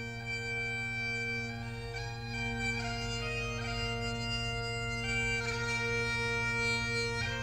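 Background bagpipe music: steady drones holding one low note under a chanter melody that steps from note to note.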